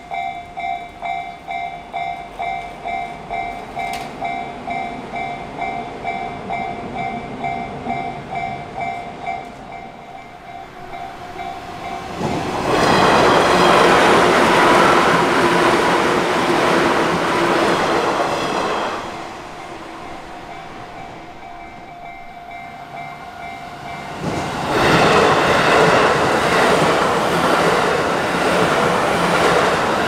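Japanese level-crossing warning bell ringing in a steady, rapid pulse. About twelve seconds in, a green JR West 201-series commuter train passes with loud wheel and rail noise that drowns the bell for about six seconds. The bell is heard again briefly, then about twenty-four seconds in a JR West 221-series Yamatoji Rapid train passes.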